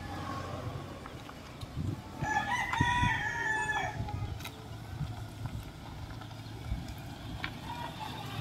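A rooster crows once, starting about two seconds in and lasting nearly two seconds, over the low rumble of the Toyota Innova rolling slowly across the dirt lot.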